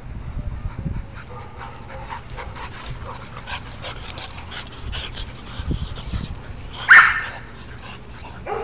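Dogs playing on grass, with faint scuffling throughout and one short, loud bark about seven seconds in.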